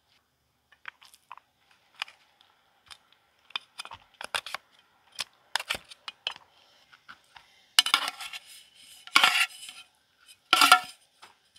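Plastic rice paddle tapping and scraping against a metal plate and a metal steamer basket while food is served. There are scattered light clicks, then three louder clattering scrapes near the end.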